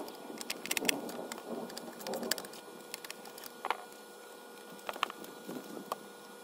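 Scattered sharp clicks and short rustling from hands handling the opened plastic base of an Osterizer blender and its wiring. The clicks are irregular, with the sharpest about a second in and others around two, three and a half, and five seconds in.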